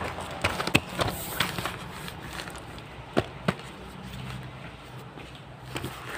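A taped cardboard parcel being set down and handled on a wooden table: scattered knocks and taps of the box and fingers against cardboard and wood. Most come in the first second and a half, and two sharper knocks come about three seconds in.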